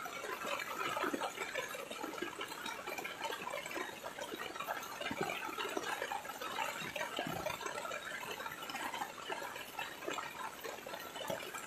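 Heavy rain falling steadily on a wet paved walkway, a dense, even spatter of drops.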